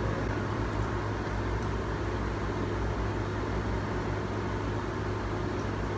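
Steady low hum and even hiss of a tower fan running.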